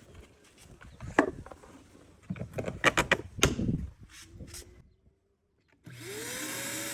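A run of clicks and knocks from handling the shop vac, then near the end a 5-gallon VacMaster wet/dry vacuum is switched on: its motor starts with a loud rush of air and a whine that rises in pitch as it spins up, then holds steady.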